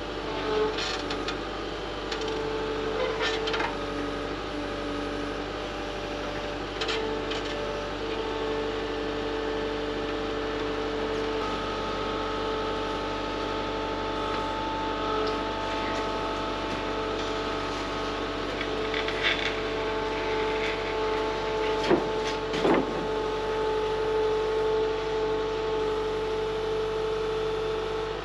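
Compact track loader running steadily with a high whine, working its forks to lift a stack of lumber, with a few short knocks and clatters from the load along the way.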